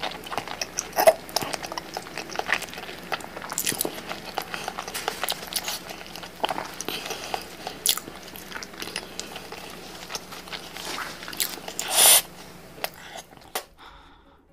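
Close-up wet chewing of a big sauce-covered mouthful, with many short sticky smacks and clicks of lips and mouth; a louder, longer wet sound about twelve seconds in. The clicks grow fewer and quieter near the end.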